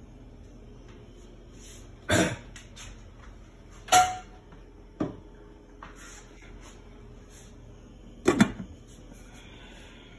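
Stainless steel pot and its glass lid clanking as the lid is handled and set on: four sharp knocks over several seconds, the second ringing briefly, the last one doubled, over a low steady hum.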